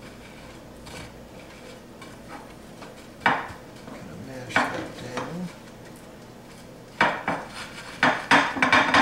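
Sharp clinks and knocks of a glass baking dish as breaded eggplant slices are pressed into the crumbs by hand: a few spaced knocks, then a quick cluster near the end.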